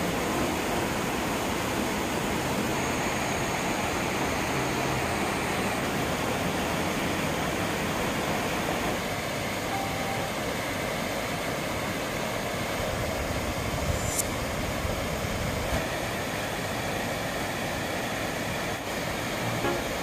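Mountain stream rushing over boulders and pouring in small waterfalls into rock pools: a steady, even rush of water.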